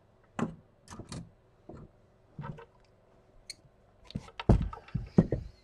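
Small hand tools clicking and tapping as they are picked up and worked against a plastic dispenser case, with a few louder knocks about four and a half to five seconds in.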